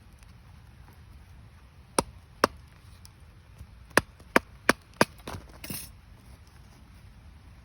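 Firewood cracking: six sharp, irregular wooden cracks over about three seconds, followed by a brief rustle.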